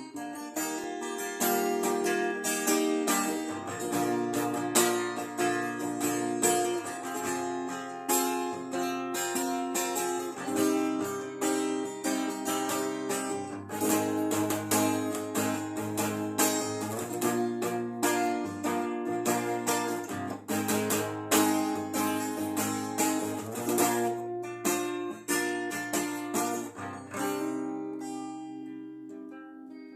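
Acoustic guitar playing, with plucked and strummed notes, dying away near the end.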